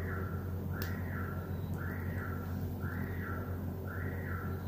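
A whistle-like sound repeating about once a second, each one rising and falling in pitch, over a steady low hum.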